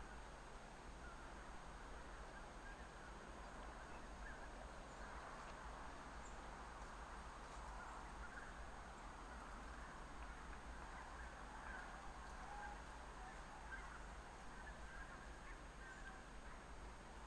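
Faint, distant geese calling continuously, many voices blending into one murmur with no single call standing out.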